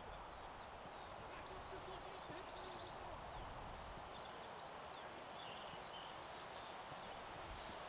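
Open-air ambience: a steady wash of outdoor noise with faint, distant voices. A bird sings a quick run of high chirps about one and a half seconds in, with a few fainter calls later.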